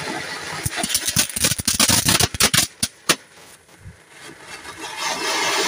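Diwali firecrackers going off: a rapid run of small sharp bangs for about two seconds, the loudest single bang about three seconds in, over the hiss of anar fountains spraying sparks. The hissing swells again near the end.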